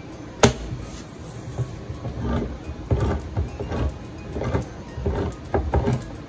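Handheld manual can opener biting into the lid of a metal can with a sharp click about half a second in, then cranked around the rim in short, irregular grinding bursts as it cuts the lid open.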